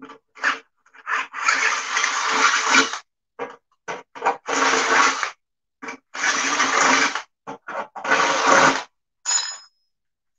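Cordless drill boring a hole through a metal base plate. It runs in several stop-start runs of one to two seconds, with shorter bursts between, and a short high ring near the end.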